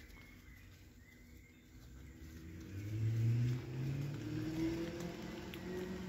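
A motor vehicle's engine hum that swells from about two seconds in and stays fairly steady after.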